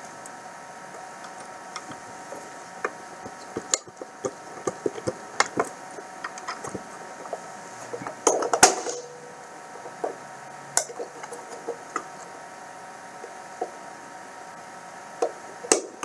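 Scattered light clicks and knocks of a screwdriver driving a screw through metal anti-stringing teeth into a PA7 cashbox, with the box being handled. One sharper knock comes a little past halfway, and two more near the end.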